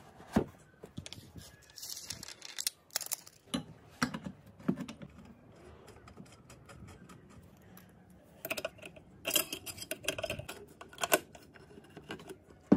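Handling noise of an enamel pot and small metal fittings: scattered clinks, taps and rattles, busiest in a run of clattering about two thirds of the way in.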